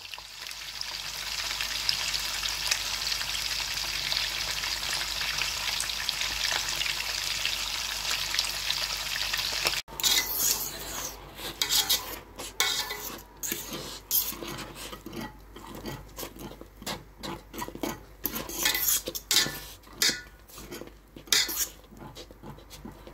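Polenta being stirred in a pot. A steady hiss fills the first ten seconds. After a sudden break, irregular scraping strokes follow as the thick polenta is worked against the pot.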